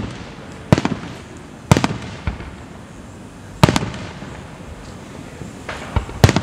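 Aerial fireworks shells bursting overhead: about five sharp booms at uneven intervals, each trailing off in a rolling echo, with the loudest pair close together near the end.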